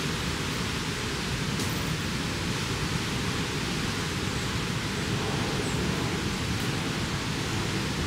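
Steady, even hiss of noise that does not change.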